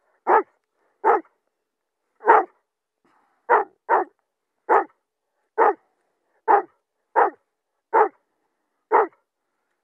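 Estonian hound barking in eleven short single barks at uneven intervals of half a second to just over a second, stopping about nine seconds in. The hound is barking over a freshly shot hare.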